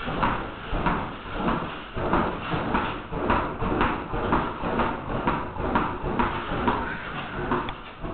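A burning tennis ball bounced over and over with a tennis racket: a steady run of knocks, about two a second.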